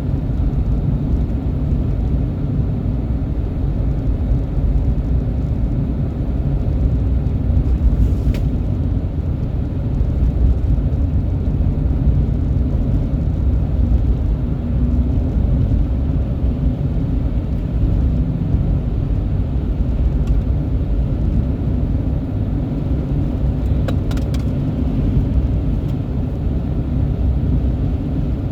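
Steady low rumble of a vehicle running, with a faint click or two.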